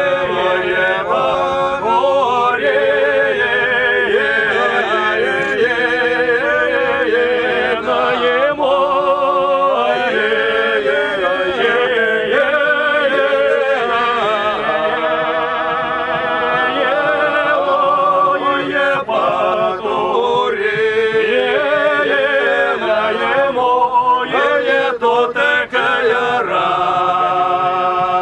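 Several men's voices singing together unaccompanied, a cappella. Near the end they hold a long chord.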